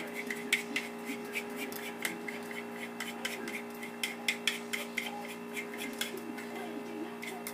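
Homemade slime being squished and stretched by hand, making irregular small clicks and pops, over a steady electrical hum.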